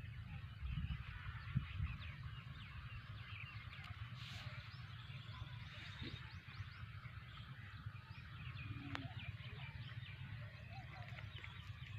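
Faint background of many small birds chirping over a low rumble, with no loud call standing out.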